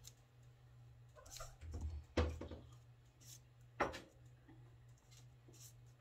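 A few light clicks and knocks of wooden clothespins and small craft items handled and set down on a table, the loudest about two seconds in and a sharp click near four seconds, over a steady low hum.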